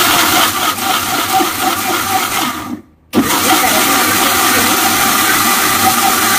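Electric mixer-grinder running at full speed, its blades grinding plums and sugar into a paste in the steel jar. It is switched off for a moment just under three seconds in, then started again at once.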